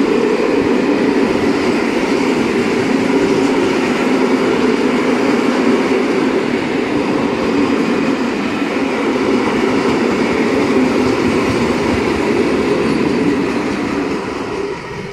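Freight train of open-top gondola wagons rolling past on the rails, a steady loud rumble of wheels and wagon bodies. It fades away near the end.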